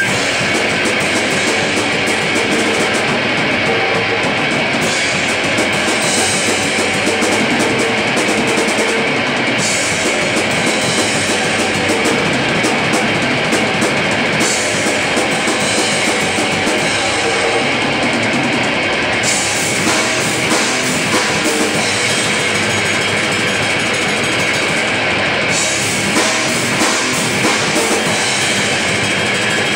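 A heavy metal band playing live in a rehearsal room: electric guitars over a drum kit, loud and steady, in the style of blackened death/thrash metal.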